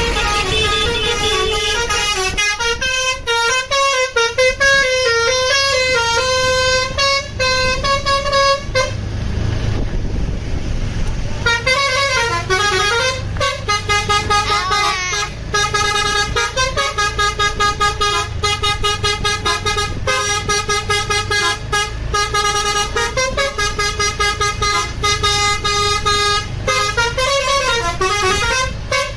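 Indonesian bus 'telolet' musical air horn (Basuri) playing fast tunes of stepping notes. About nine seconds in, the tune breaks off for a couple of seconds of rushing noise, then starts again with rapid, pulsing notes.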